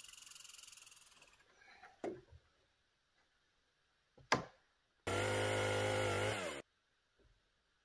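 Chopped-up snippets of a gas chainsaw. A buzz of the saw fades over the first second and a half, then comes a single sharp knock a little after four seconds. Near the end the saw runs for about a second and a half at a steady pitch that sags slightly before cutting off suddenly.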